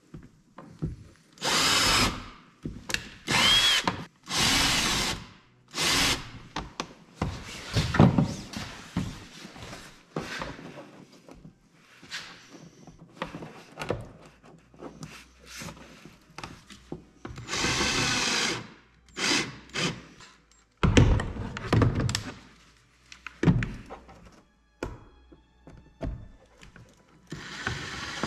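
Power drill run in several short bursts of about a second each, with knocks and clatter of tools and parts between them.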